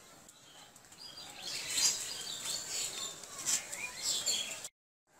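Birds chirping, with a series of short sweeping calls over a steady background hiss; the sound cuts off suddenly near the end.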